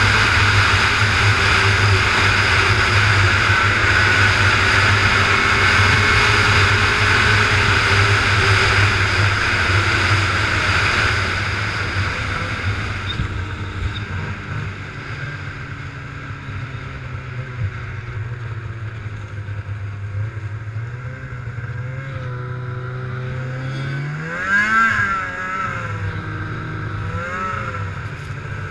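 Snowmobile engine running loud and steady at speed, then easing off about twelve seconds in to a lower, quieter note. Near the end it revs up briefly and drops back.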